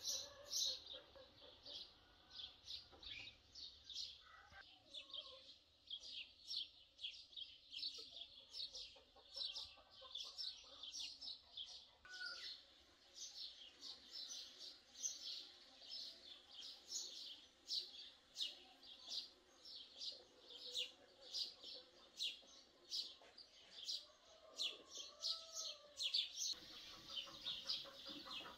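Small birds chirping: a steady run of short, high chirps, several a second, going on throughout.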